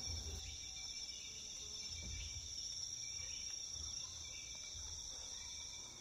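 Rainforest insect chorus: a steady high-pitched drone of insects over a faint low rumble.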